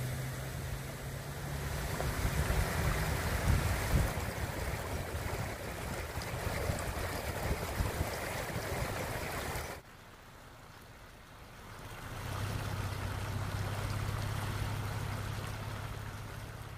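Muddy flash-flood runoff rushing down a dirt wadi channel, a steady rushing noise. It cuts off abruptly about ten seconds in, and a quieter flow follows, with a steady low hum swelling up under it.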